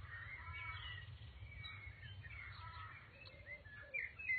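Birds chirping and calling in the trees, faint, with short rising and falling notes over a steady low rumble of background noise.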